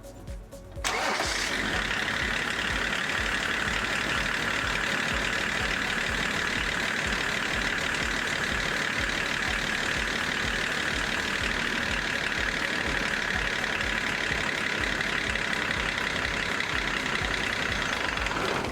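Range Rover P38 engine being cranked on the starter motor without firing, a steady mechanical grind that starts about a second in and stops suddenly. It won't catch because the newly fitted fuel filter is still empty and the in-tank pump has to refill it.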